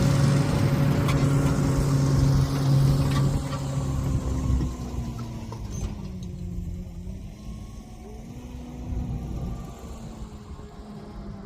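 Tractor engine running with a steady hum while cultivating. About five seconds in it drops noticeably in level, and its pitch dips briefly before recovering.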